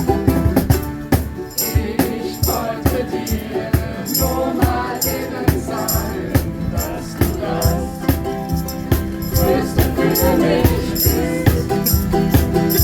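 Ukuleles strummed in a steady rhythm, with voices singing along and a shaker rattling on the beat.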